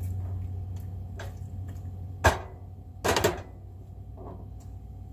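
A spatula working a vegetable stir-fry in a frying pan on a stove, with light scrapes and clicks, a sharp knock about two seconds in and a short clatter of utensil against pan about a second later.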